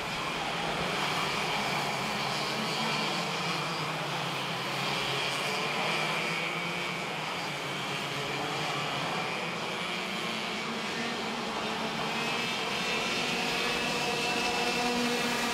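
Several racing kart engines running at racing speed as a pack of karts laps the track, their overlapping pitches shifting as they accelerate and lift.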